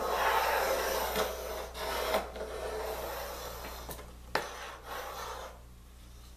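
Pencil on a trammel scraping across plywood as an arc is scribed. The scratching is loudest at first, tails off and stops near the end, with a sharp click about four seconds in.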